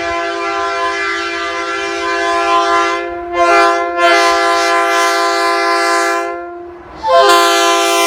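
Leslie RS3K three-chime locomotive air horn (Tampa type, bells 31, 37 and 48, fitted with debris cones) blowing its chord. A long blast is followed by a short toot about three seconds in, then another long blast, and a fresh blast begins about seven seconds in.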